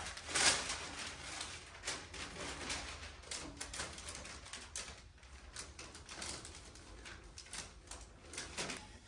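Masking paper rustling and crinkling as it is handled and pressed onto a truck door, with many small irregular crackles; loudest about half a second in.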